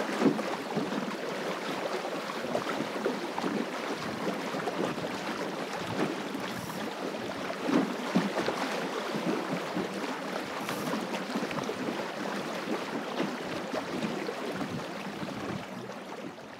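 Water rushing and splashing along the hull of a small plywood sailing dinghy, a Goat Island Skiff, under way in a gusty breeze, with wind buffeting the microphone. A few brief louder splashes stand out, one about eight seconds in.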